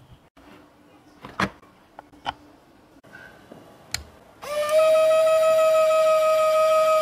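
A couple of light knocks, then a switch click about four seconds in, and the mini disc sander's 775 DC motor spins up: a whine that rises briefly and then holds at a steady pitch as the motor runs, driving the sanding disc through a GT2 toothed belt.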